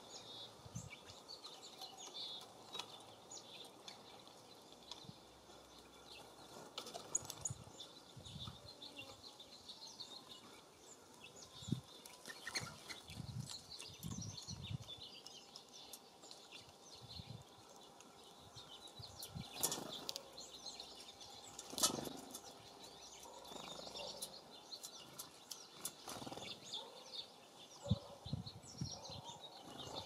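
Small songbirds chirping and calling around a feeder, short high notes scattered throughout, with occasional wing flutters and soft knocks as birds land and take off; the loudest knocks come about two-thirds of the way through.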